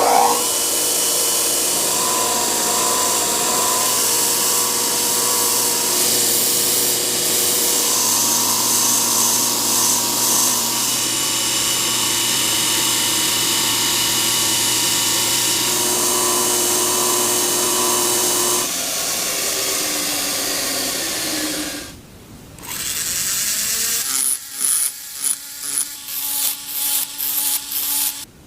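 Handheld electric power tool running steadily with a whine for most of the stretch, stopping briefly a little over twenty seconds in, then switched on and off in about ten short bursts near the end.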